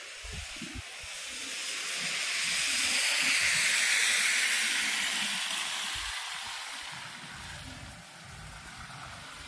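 A vehicle passing on a slushy, snow-covered street: a hiss of tyres through wet snow that swells to a peak about four seconds in, then fades away.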